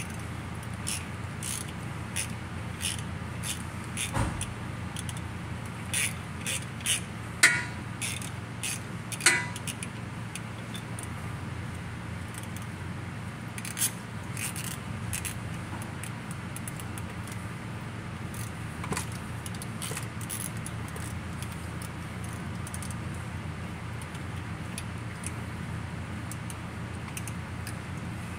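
Hand ratchet and socket clicking, with metal tools clinking, as bolts are worked on a car's exposed automatic-transmission valve body. The clicks come thickly for the first ten seconds or so, then only now and then, over a steady low hum.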